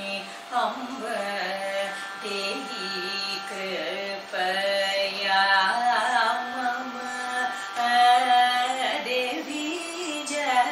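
A woman singing a Carnatic kriti solo, holding notes and sliding between them with gliding ornaments.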